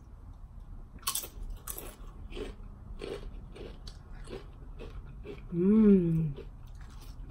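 Crisp tortilla chips crunching as they are bitten and chewed, in a steady rhythm of about one crunch every half second. A short hummed "mmm" that rises and falls in pitch comes about three-quarters of the way through and is the loudest sound.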